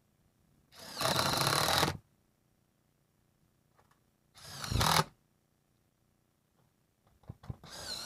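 Power drill running in three short bursts, driving screws into metal roofing; the first is the longest, about a second, and a few light knocks come just before the last.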